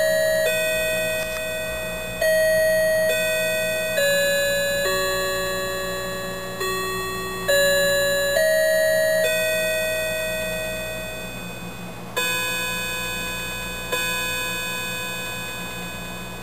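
Wall clock chiming the hour: a melody of slowly decaying rod-chime notes, then two hour strikes on one lower note about a second and a half apart, each left to ring out.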